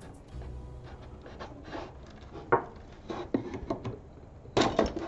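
Pieces of a taken-apart wooden mini barrel being handled: scattered light knocks and rubs of wood and plastic, with a louder clatter of knocks near the end.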